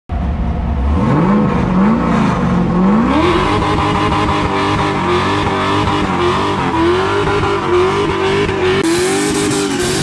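Drift car doing a stationary burnout. The engine idles, is blipped twice, then revs up and is held high and wavering while the rear tyres spin and squeal on the concrete.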